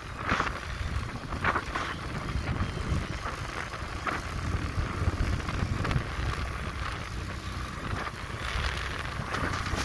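Motorcycle riding over a rough gravel road: a steady low rumble with wind buffeting the microphone and a few brief knocks from bumps.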